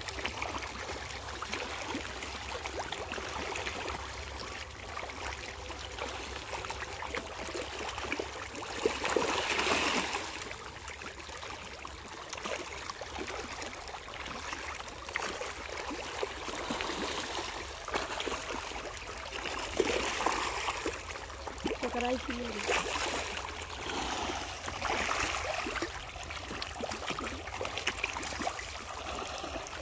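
A crowd of fish splashing and churning at the water's surface as they feed on scattered pellets: an even, ongoing wash of splashes and gurgles with louder surges several times, the biggest about ten seconds in.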